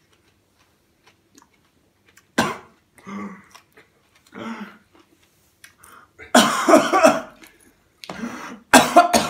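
A man coughing and clearing his throat in several sudden, uneven fits while eating a raw onion; the loudest fit comes about six seconds in, with two sharp coughs near the end.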